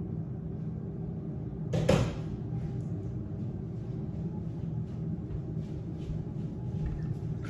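A door closes with a single loud bang about two seconds in, followed by soft footsteps on a hard floor, over a steady low hum.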